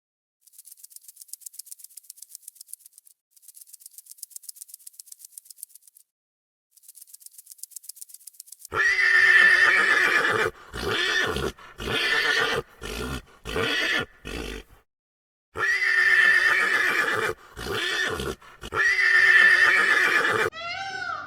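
A rapid, faint, high-pitched clicking rattle. About nine seconds in it gives way to a loud, whinny-like wild animal call, repeated in long pulses with short gaps. Near the end, short rising-and-falling mewing calls begin.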